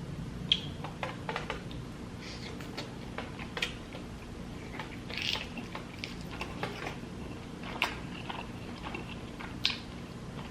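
Close-miked chewing and wet mouth sounds of eating seafood boil in butter sauce: irregular smacks and clicks scattered through, over a low steady hum.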